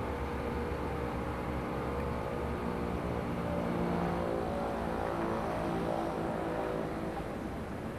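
An engine running steadily, growing a little louder around the middle and easing off near the end.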